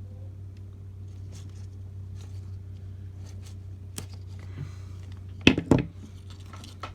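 Wire strippers being handled and clamped on an extension cord's outer insulation: a few faint clicks, a sharp click about four seconds in, then two loud snaps about a second and a half later, over a steady low hum.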